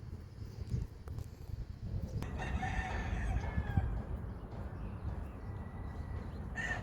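A rooster crowing once, starting about two seconds in and lasting about a second and a half, over a low rumble.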